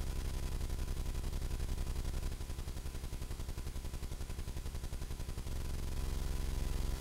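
Steady low electrical hum and buzz with a fast, even pulsing. The low part drops about two and a half seconds in and comes back stronger about six seconds in.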